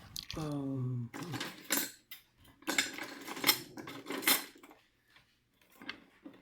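Small metal tools and parts clinking and rattling as they are rummaged through, a string of sharp clicks and clatters.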